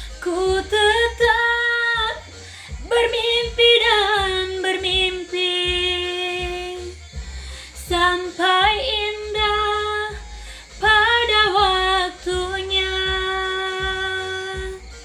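A woman singing a slow melody in long held notes, about five phrases separated by short breaths, with no clear words.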